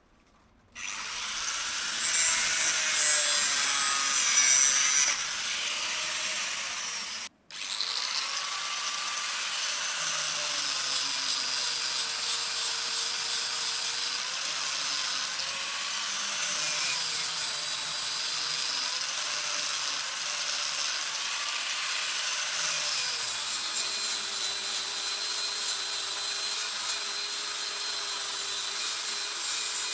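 Electric grinder grinding the leaf-spring steel of a knife blank: a steady harsh grinding hiss over the motor's hum, whose pitch sags and recovers as the steel is pressed against it. It starts about a second in and breaks off very briefly about seven seconds in.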